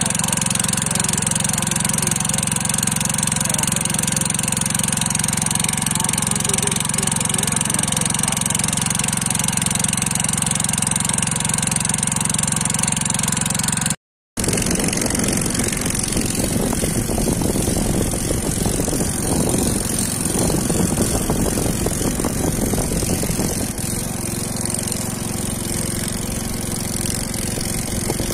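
An engine running steadily with an even hum. It cuts out abruptly about halfway through, then carries on with a rougher, noisier sound.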